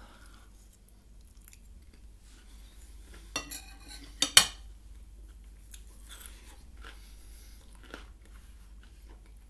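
Close-miked chewing of a mouthful of roast potato. A few sharp clinks of a metal fork on a plate come a little before the middle, the loudest pair about four seconds in.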